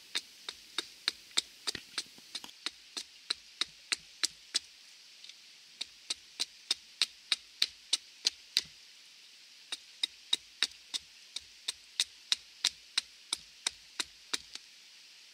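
Wetterlings Bushman axe, held choked up near the head, chopping a point onto a wooden stick with short, light, crisp strikes, about two or three a second. The strikes pause briefly twice.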